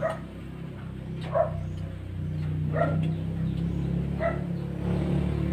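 A dog barking repeatedly, short single barks about once every second and a half, over a steady low hum.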